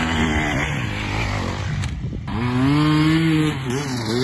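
Dirt bike engine revving hard under load on a steep hill climb, the pitch rising and falling with the throttle. About two seconds in it breaks off and a bike engine comes in again, climbing in pitch, holding, then wavering as the throttle is worked.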